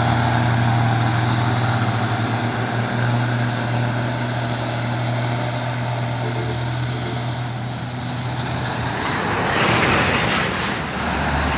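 Heavy diesel truck engine pulling steadily under load, a deep even drone. About nine seconds in, a louder rush of engine and tyre noise swells as a Hino truck passes close, then eases off.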